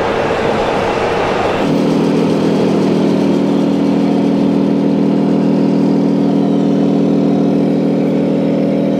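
Engine-sound module of a 1:14 scale RC Scania truck, playing a steady diesel engine running sound through its speaker. It cuts in abruptly about a second and a half in, after a stretch of rushing noise.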